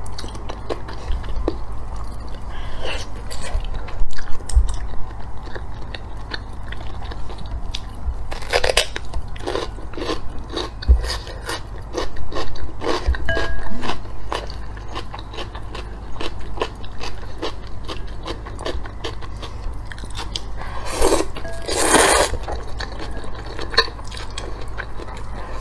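Close-up eating sounds: crunchy bites and chewing of pickled cucumber, with wet clicks and smacks throughout. Near the end come a couple of longer, louder slurps of noodles from a bowl of broth.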